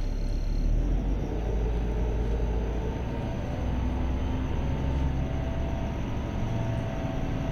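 LiAZ city bus engine running, a steady low rumble heard from inside the bus, with a faint whine that shifts in pitch now and then.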